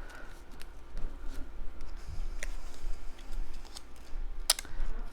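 Paper cardstock pieces being handled on a table: light rustling and small taps and clicks, with a sharper click about four and a half seconds in.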